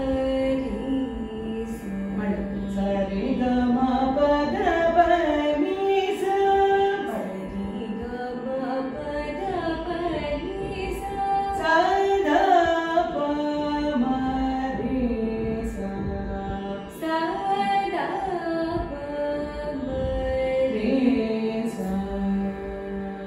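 A woman sings Carnatic phrases in raga Janaranjani, sliding and bending between notes, and accompanies herself on a plucked veena whose strings hold steady tones beneath the voice.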